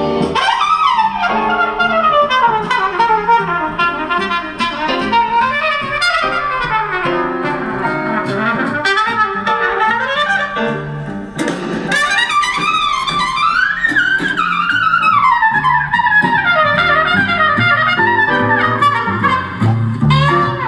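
Recorded music with a melodic lead line, played loud through a pair of bookshelf loudspeakers driven by a tiny USB-powered PAM8403 3-watt class-D amplifier board. It dips briefly about halfway through, then carries on.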